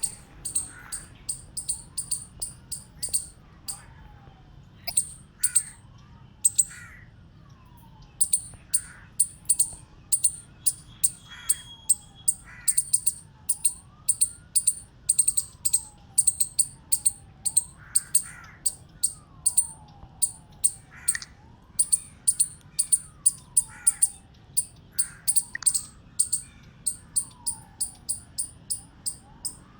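Chipmunk giving the repeated chip call that chipmunks use when alarmed: a long series of short, high chips, about three a second, broken by brief pauses near the start. Fainter rising and falling whistles run underneath.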